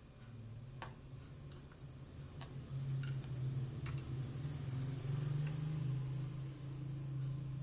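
Low, continuous snoring from someone dozing while their nails are clipped; it grows louder about three seconds in. Several sharp snips of nail clippers cut through it in the first few seconds.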